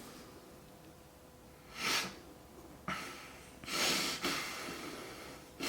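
A man breathing hard, four noisy rushes of air through the nose and mouth, the longest near the middle, as inhaled Carolina Reaper chili powder burns his nose and throat.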